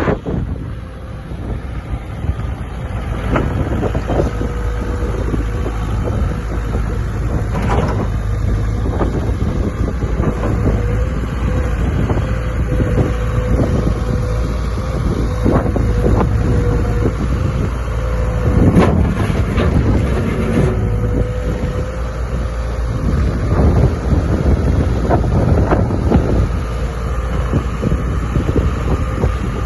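Diesel engine of a Volvo BL70 backhoe loader running steadily, with a steady whine through much of the time and scattered knocks, the heaviest near the middle, over wind on the microphone.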